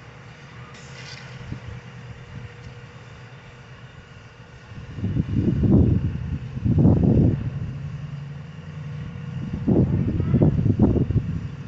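Wind buffeting the microphone in irregular gusts, about five seconds in and again near the end, over a steady low hum.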